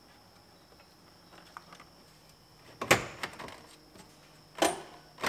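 Hollow plastic knocks and rattles from the car's dash panel being handled and shifted, with a few small clicks, then two loud knocks about three and four and a half seconds in, each ringing briefly.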